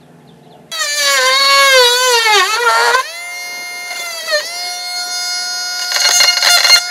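Oscillating multi-tool plunge-cutting into plywood: the motor starts with a sudden high whine about a second in, its pitch sagging each time the blade bites in and then steadying, with a rattling chatter of the blade near the end.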